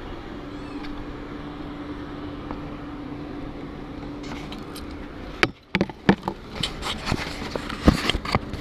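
A steady mechanical hum with a low held tone, and a faint cat meow just under a second in. From about five seconds in, a run of loud, sharp knocks and clatter follows, broken by a brief dropout.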